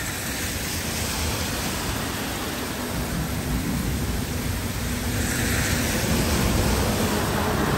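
Heavy rain falling steadily on trees and a wet street, a continuous hiss that swells louder about five seconds in.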